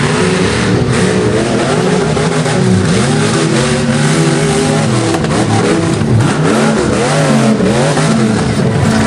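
Off-road 4x4 truck engine revving hard on a hill climb, its pitch rising and falling repeatedly as the throttle is worked.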